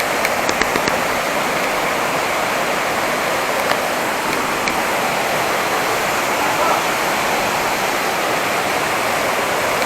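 Waterfall rushing steadily, with a few light clicks about half a second in.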